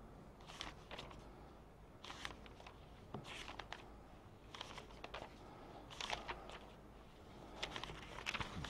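Faint rustling and handling of paper pages, in short scattered bursts.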